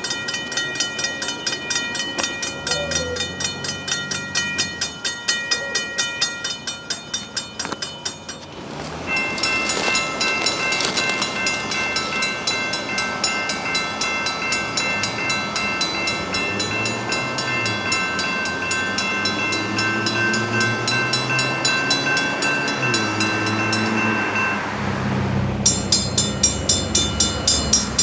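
Safetran mechanical railroad crossing bells ringing: a steady run of rapid, even gong strokes, each ringing on. The sound switches abruptly to a different bell about a third of the way in and again near the end. Low train sounds, including horn tones, run under the bell in the middle stretch.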